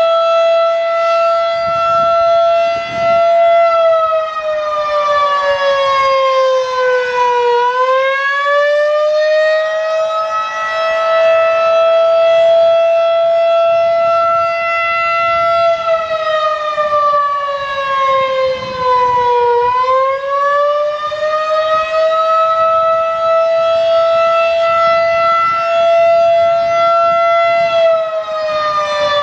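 Federal Signal 2001-DC single-tone battery-powered rotating outdoor warning siren sounding in a test. Its tone holds at a steady pitch, then sags and climbs back twice, about twelve seconds apart.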